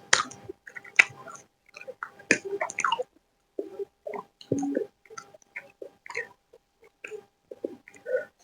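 Close-miked chewing of chicken chowmein noodles and chicken: irregular wet mouth clicks and smacks, a few every second.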